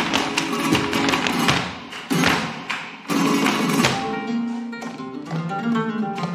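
Live flamenco music: sharp, rapid strikes of the dancers' heeled footwork and percussion over acoustic guitar. About four seconds in the strikes thin out and guitar notes ring more clearly.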